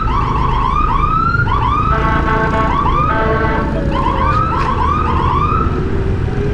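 Fire truck's electronic siren yelping in fast rising sweeps, about three a second, broken by two short horn blasts near the middle before the yelping resumes. Low traffic rumble underneath.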